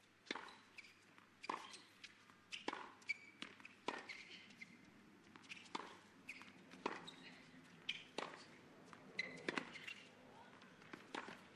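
Tennis rally on a hard court: sharp racket strikes and ball bounces, one knock roughly every second, back and forth.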